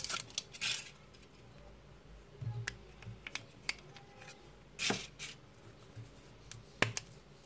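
Scattered small clicks and taps from hands handling a split Kinder Surprise chocolate shell and its yellow plastic toy capsule. The loudest click comes about five seconds in.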